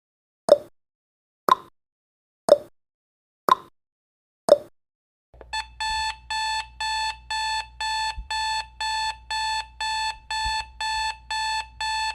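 Timer sound effect ticking once a second, alternating tick and tock, for about five seconds. When the countdown reaches zero it switches to an alarm-clock beep repeating about two and a half times a second.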